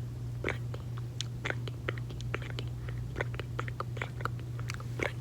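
Close-miked gum chewing: wet, irregular mouth clicks and smacks, several a second, over a steady low hum.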